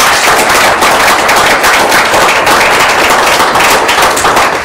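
Audience applauding, a dense, loud patter of many hands clapping that dies away near the end.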